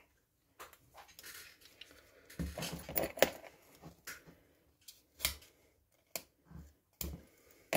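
Scattered light clicks, taps and small scrapes of small kit parts and tools being handled on a workbench, irregular and with pauses between them.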